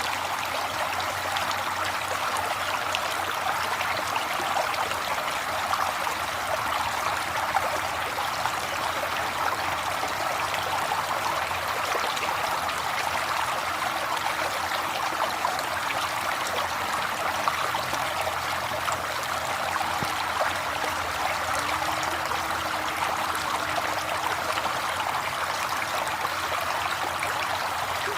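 River water flowing and splashing steadily, a continuous rushing with no breaks or changes.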